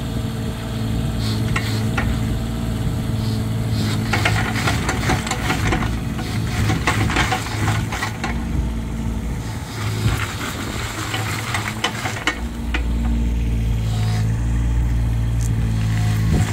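Kubota KX41-3V mini excavator's diesel engine running while its boom and arm are worked, with a hiss and many rattling clicks from about four to twelve seconds in, then a steadier run.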